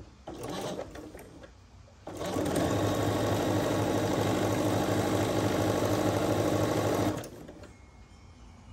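Computerized sewing machine stitching a seam at a steady, even speed, starting about two seconds in and stopping about five seconds later, after faint rustling of fabric being positioned.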